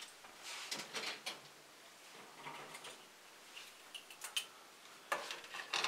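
Faint clicks and rustling of plastic model-kit runners being handled and set down, with a short cluster of sharper clicks near the end.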